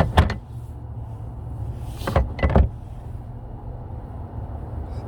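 Sharp clicks and knocks of hands-on work at the car: two close together at the start and two or three more about two seconds in, over a steady low rumble.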